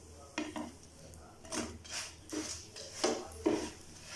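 Spatula and tongs knocking and scraping against a nonstick frying pan as a missi roti is turned over: a string of about eight short scrapes and taps.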